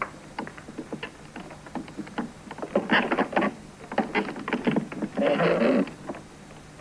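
Wooden crate being forced open: a run of knocks and creaks that grows louder and denser about three seconds in, with a longer scraping rustle a little after five seconds.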